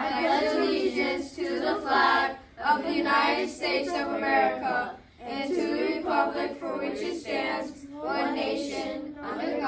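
Group of children's voices reciting the Pledge of Allegiance in unison, in phrases separated by short pauses.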